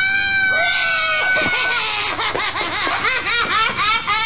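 A child's tantrum: one long, high-pitched scream held for nearly two seconds, then rapid, repeated rising-and-falling wailing cries.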